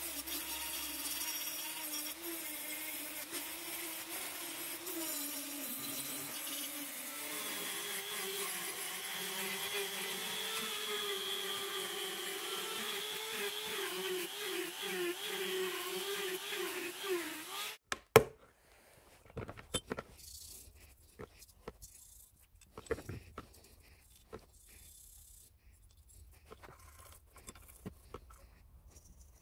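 Handheld rotary tool with a sanding drum running steadily as it sands the rusty iron frame of an old curling iron, its pitch wavering under load; it cuts off abruptly after about 18 seconds. A sharp click follows, then faint scrubbing of a toothbrush on brass parts.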